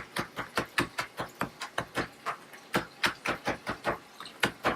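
Kitchen knife chopping fresh mint leaves on a chopping board: quick, even chops, about five a second.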